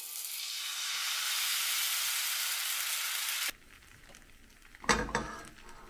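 Crepe batter sizzling in a hot frying pan, an even hiss that stops abruptly about three and a half seconds in. A sharp knock about a second later.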